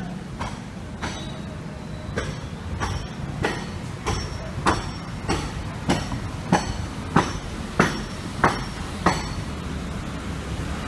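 Speedboat hull slamming repeatedly on choppy waves over a steady engine drone, about three hits every two seconds. The hits grow louder in the second half and stop about nine seconds in.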